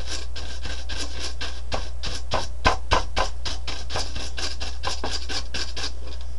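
Stiff-bristled scrub brush scrubbing back and forth along the slots of a plastic knitting-machine needle bed (Bond Ultimate Sweater Machine), a quick scratchy rasp of about six strokes a second that stops just before the end, loosening dust and gunk from the slots. A steady low hum runs underneath.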